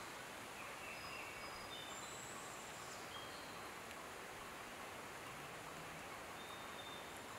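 Steady outdoor background hiss with a few faint, short, thin bird whistles at different pitches in the first three seconds and one more near the end.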